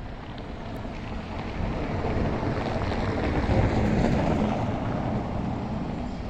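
Boeing 737-700's CFM56 jet engines rumbling as the airliner lands, swelling to a peak about three and a half seconds in and then easing, with some wind noise on the microphone.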